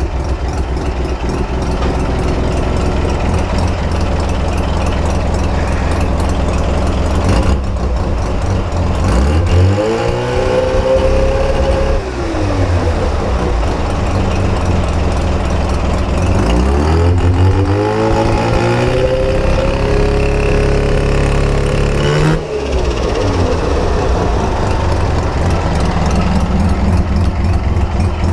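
Mazda RX-7 FC's bridgeported 13B two-rotor rotary engine idling with a fast pulsing beat, revved twice: briefly about ten seconds in, then held longer a few seconds later, each time rising, holding and dropping back to idle. Somewhere in it is a clicking from the engine bay that the owner cannot identify.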